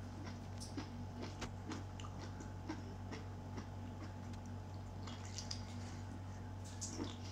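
Faint, irregular wet clicks and smacks of a person biting, sucking and chewing food held to the mouth, over a steady low hum.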